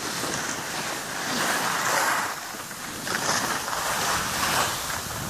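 Skis sliding and scraping over packed, tracked snow: a rough hiss that swells and fades a few times.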